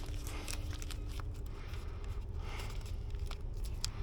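Scattered light clicks and rustling from handling and positioning gear by hand, over a steady low rumble.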